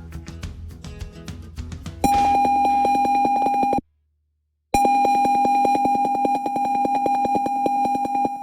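Arduino piezo buzzer sounding a steady high-pitched alarm tone, the intruder alarm going off. It starts about two seconds in, cuts off abruptly a little before the middle, and starts again about a second later.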